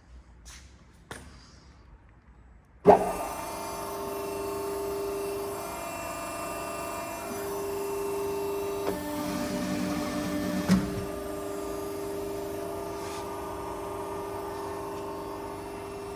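A hydraulic power unit, a 7.5 kW electric motor driving a 16 l/min pump, switches on with a sharp start about three seconds in and runs with a steady hum. Around ten seconds in the tone shifts for a couple of seconds, as under load, and ends in a single knock.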